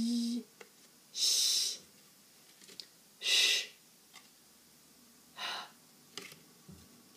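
A woman's voice demonstrating Swedish consonants in isolation: a brief voiced "j" at the start, then three separate hissing fricatives about two seconds apart, the middle one the retroflex "sh" sound ʂ.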